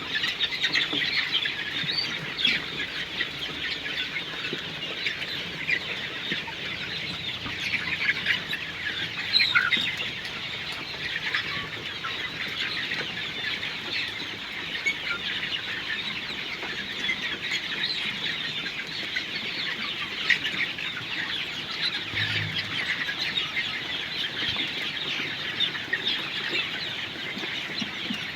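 A flock of Sonali chickens clucking and chirping all at once, a dense, steady chatter of many overlapping short calls.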